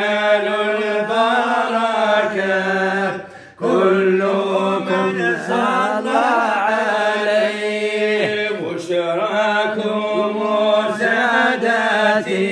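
Men's voices chanting devotional praise of the Prophet Muhammad together, stretching the syllables into long bending notes over a steady low held note. There is a short break for breath about three and a half seconds in.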